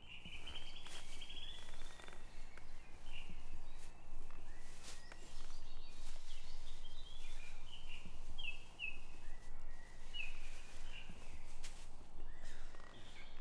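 Woodland ambience: small birds chirping, with a short rapid trill at the start and then scattered short falling chirps, over a steady low background rumble, with occasional soft rustles and clicks.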